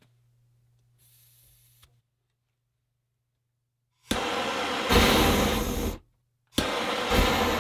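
Handheld propane torch hissing as its gas flows, in two runs: the first starts sharply about four seconds in and lasts about two seconds, and after a half-second break the second starts just as sharply and keeps going.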